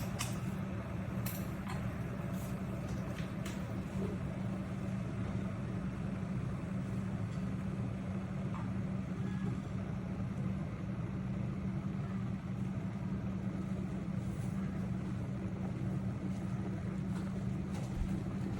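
Electric kettle heating water: a steady rumble with a constant low hum.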